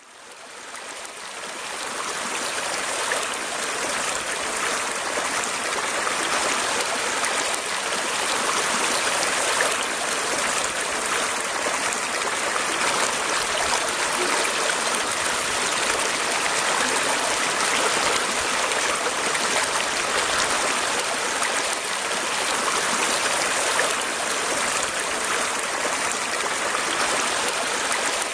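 Water running steadily, with a continuous even rush; it fades in over the first two seconds.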